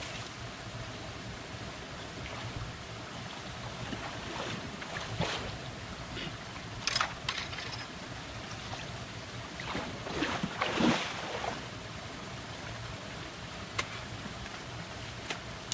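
Brush and cut plant debris rustling as it is cleared by hand, with louder bursts about seven seconds in and again around ten to eleven seconds.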